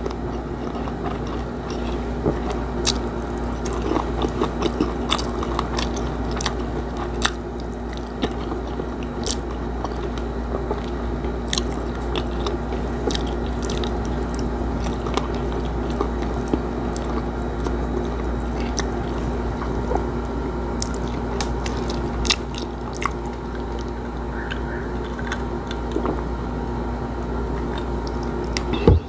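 Close-up chewing and crunching of crispy fried milkfish and rice eaten by hand, with scattered crisp mouth clicks. A steady low hum runs underneath.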